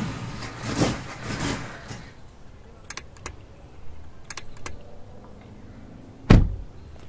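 Car engine cranking over without catching, pulsing and dying away within the first two seconds: the car will not start. A few faint clicks follow, then a car door shuts with a heavy thump about six seconds in.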